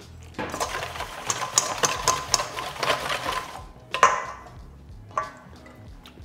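Wire whisk beating dressing in a stainless steel bowl: a fast metallic rattle with a ringing tone for about three seconds. It is followed by a sharp clink of metal on the bowl about four seconds in and a lighter knock a second later.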